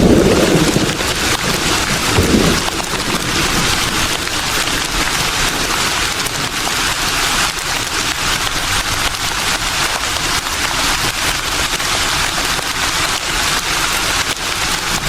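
Breeze rustling leaves: a steady, even hiss of moving foliage, with short low gusts of wind at the start and about two seconds in.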